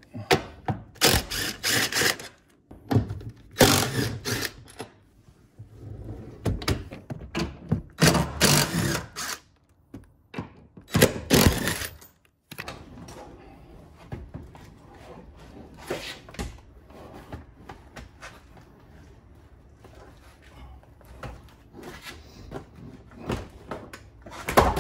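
Cordless impact driver running car seat-mounting bolts out, in four short bursts over the first half. Then quieter, irregular knocks and rustling of handling, with one sharp knock near the end.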